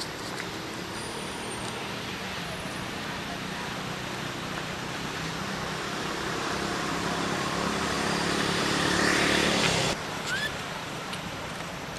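A motor vehicle running nearby, its engine hum and road noise growing steadily louder for about nine seconds, then cutting off suddenly.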